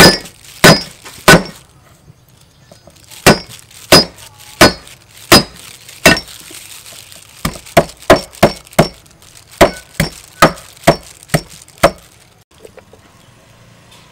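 Cleaver chopping on a thick round wooden chopping block: sharp, loud chops, first a few slow ones, then a quicker run of about two a second that stops about two seconds before the end.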